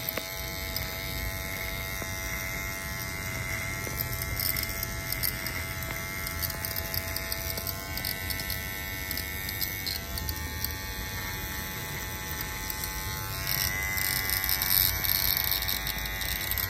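Cordless electric beard trimmer buzzing steadily as it is run over the neck to shave off stubble, getting a little louder near the end.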